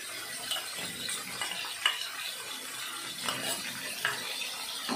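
Diced chicken sizzling softly in hot oil in a metal kadhai while a wooden spoon stirs it, with a few light knocks of the spoon against the pan as ginger-garlic paste is mixed in.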